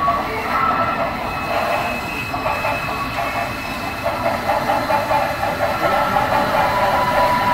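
Model freight train of tank cars rolling along layout track: a steady rumble of wheels on rail with a held whine, and a regular clicking rhythm that sets in about four seconds in.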